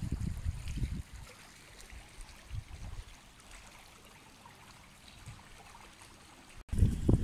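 Wind buffeting the microphone in low, uneven gusts: strong for about the first second, faint through the middle, then louder again after a brief dropout near the end.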